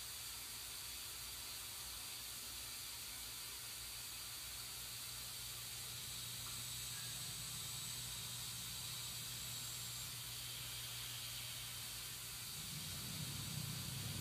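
Quiet room tone: a steady hiss with a low, steady hum. A low sound swells near the end.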